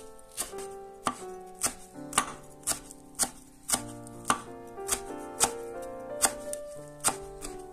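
Chef's knife chopping fresh parsley on a wooden cutting board: sharp knocks of the blade on the board, about two a second, over soft background music.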